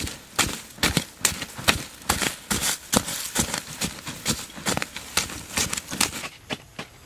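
A digging blade chopping into and scraping through loose soil in quick repeated strokes, about two or three a second, with earth thrown off; the digging stops about six seconds in.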